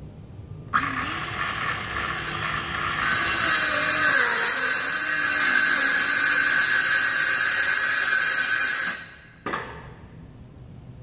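Circular saw spinning up and plunge-cutting into the van floor at a shallow set depth. It runs about eight seconds, louder once the blade is into the cut, then stops, followed by a short knock.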